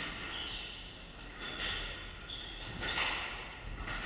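Squash rally: the ball cracking off rackets and walls, with several short, high squeaks of court shoes on the wooden floor. The sharpest hit comes about three seconds in.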